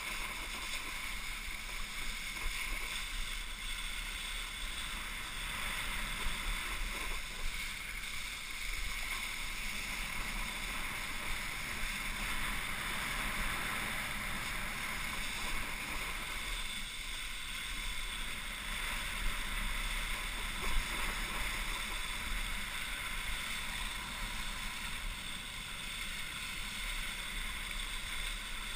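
Steady rush of wind buffeting a helmet-mounted camera, mixed with the hiss of water spraying off a wakeboard skimming across the lake.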